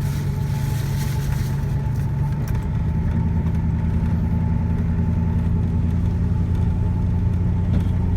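A vehicle's engine running, a steady low drone that steps up slightly in pitch about three seconds in.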